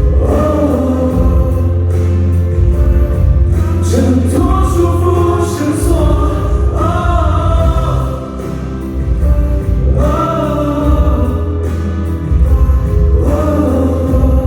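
Pop song with a singing voice over a heavy, steady bass, played loud through a venue's sound system during a stage rehearsal.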